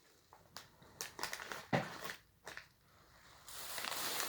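Plastic packaging of a candy dispenser crinkling and rustling as it is handled: a few scattered rustles and clicks, then steadier crinkling from about three and a half seconds in.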